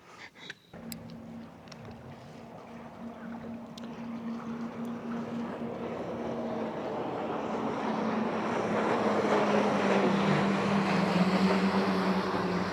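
Bass boat's outboard motor running, with a steady hum from about a second in, as the rush of water and wind grows steadily louder while the boat gathers speed.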